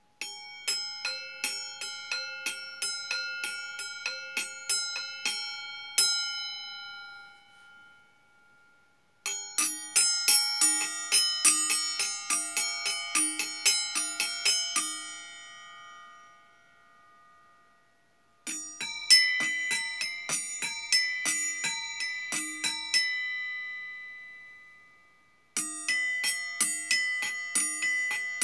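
Stainless steel bowls struck in runs of quick taps, about three a second, each tap ringing with several overlapping metallic tones. There are four runs, and after each the ringing fades away over a couple of seconds before the next run starts.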